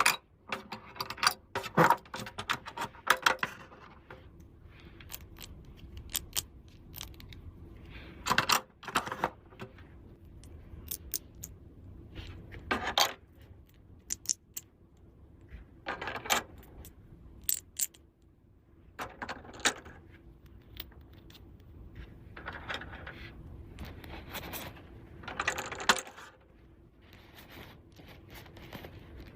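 Small hard toy pieces being handled and set down, with irregular clicks, light clatter and brief scraping or rustling.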